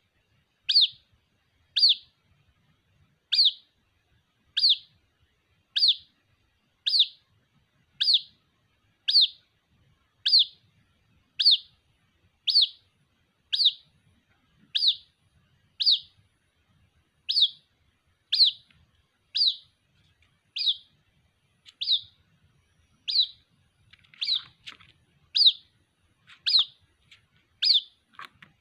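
White-breasted waterhen (ruak-ruak) chick calling for its parent: a short, high peeping note that drops in pitch, repeated evenly about once a second.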